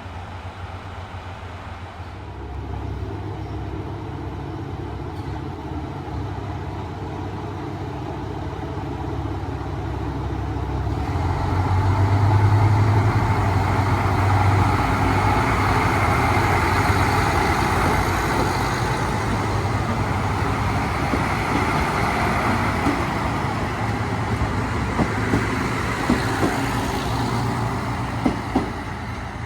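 Diesel railcar engines running with a steady low hum that swells about ten seconds in and stays loud as the train draws close. A few sharp clicks sound near the end.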